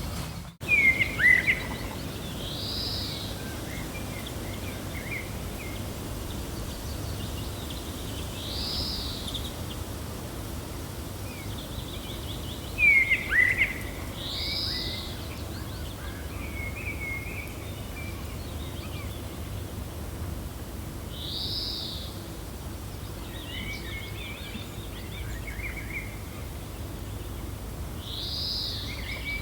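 Gentle wind blowing steadily, with birds calling over it: one call repeats about every six seconds, and small chirps come between. Two louder, downward-slurred chirps stand out, about a second in and again about thirteen seconds in.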